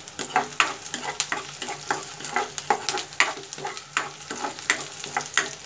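Chopped onions sizzling in hot mustard oil in a non-stick wok, stirred with a spatula that scrapes and taps the pan about three or four times a second.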